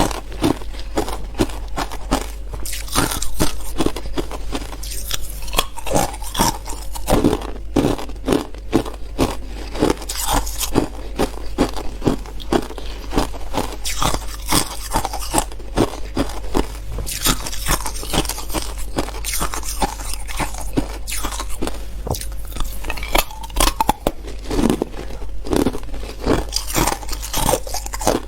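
A person biting and chewing hard clear ice close to the microphone: dense, irregular crunching and cracking with no let-up.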